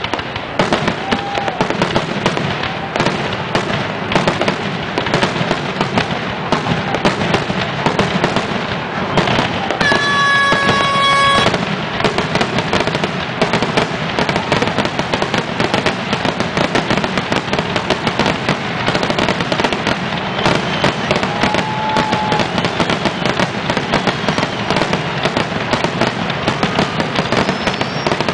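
Dense fireworks barrage: rapid, unbroken bangs and crackling from many shells and comets going off at once. A steady held tone sounds over it for about a second and a half, about ten seconds in.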